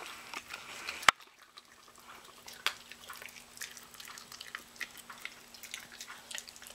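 Miniature pinscher chewing raw chicken: many short, irregular wet clicks and smacks of jaws and tongue. One much louder sharp click comes about a second in.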